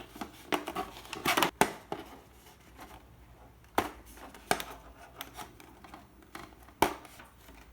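Handling noise from unpacking: rustling of packaging and irregular sharp clicks and taps as the items are handled, with a few louder clicks spread through.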